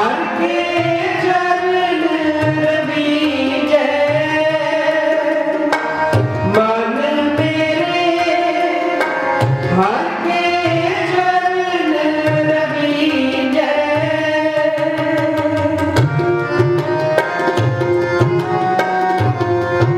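Sikh kirtan: a man singing a devotional melody to harmonium accompaniment, with tabla keeping a steady rhythm of deep bass strokes.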